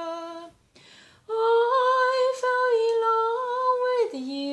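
A woman singing unaccompanied. She ends a held note, takes a short breath, then holds one long wordless note with a slight waver, stepping down to a lower note near the end.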